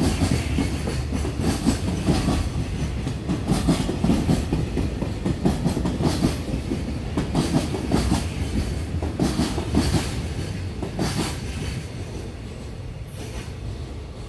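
Koki container wagons of a freight train rolling past, their wheels clattering irregularly over the rail joints. The clatter fades away over the last few seconds as the end of the train goes by.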